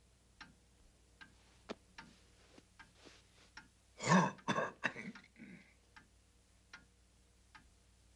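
Sparse, light clicks of cutlery against plates, with a short throat-clearing cough about four seconds in.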